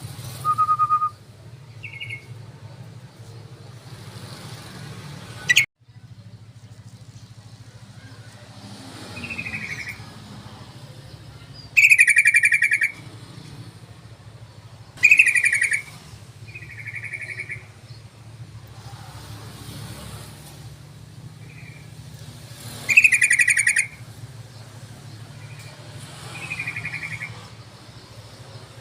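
Yellow-vented bulbul (trucukan) calls played as a lure: short bubbly bursts of song about a second long, repeated with gaps of a few seconds, some loud and some fainter. A low steady hum runs underneath, and a single sharp click sounds about five seconds in.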